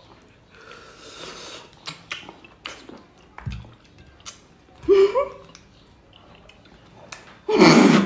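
Wet sucking and slurping of ripe mango flesh from the peel and seed, with faint mouth clicks. A short vocal sound comes about five seconds in, and a loud vocal outburst near the end.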